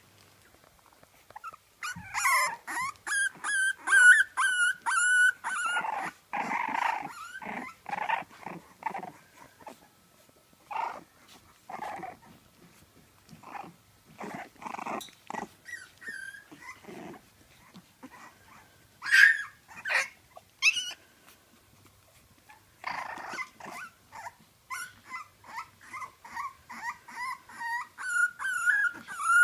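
French Bulldog puppies playing and squabbling: runs of high, wavering whines and squeals, with short rough growls between them and a couple of sharp, loud yelps about two-thirds of the way through.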